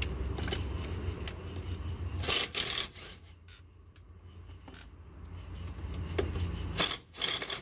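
Cordless power tool run in two short bursts, about two seconds in and again near the end, spinning the nuts off a jet pump's diverter nozzle. Metal scraping and clinking comes between the bursts, over a low hum that stops shortly before the end.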